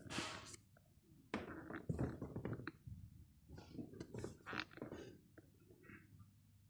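Faint, irregular rustling and light knocks, a few short bursts of handling noise.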